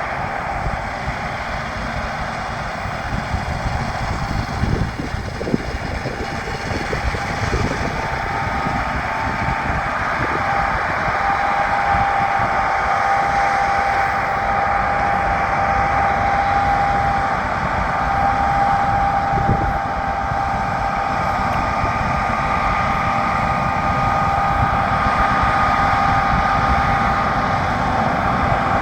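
Harvest machinery running steadily: a continuous engine drone with a constant high whine over an uneven low rumble.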